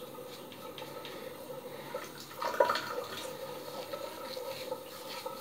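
Three-bladed razor scraping through long head hair on a gel-lathered scalp in many short, scratchy strokes, with one louder scrape about two and a half seconds in.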